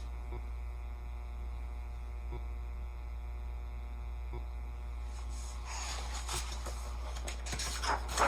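Steady low electrical mains hum, with paper rustling from about five and a half seconds in and two sharper crinkles near the end, as a page of the picture book is turned.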